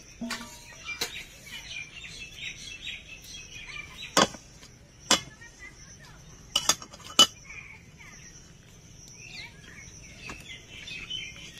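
Metal kitchen utensils clinking and knocking against a cooking pot: a handful of sharp strikes spaced a second or so apart through the middle, as the cooked semolina dough is taken off the heat. Birds chirp steadily in the background.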